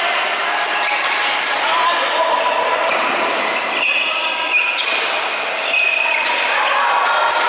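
Badminton play: rackets striking the shuttlecock in repeated sharp clicks, echoing in a large hall, with players' voices from several courts.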